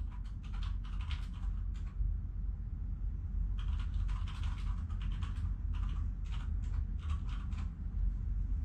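Domestic cat purring as a steady low rumble, with two spells of rapid, soft clicking over it, one in the first two seconds and a longer one from about three and a half seconds to nearly eight.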